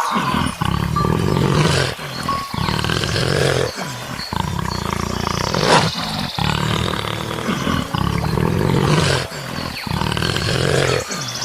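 A large animal roaring in a string of low calls, one after another with short breaks between them.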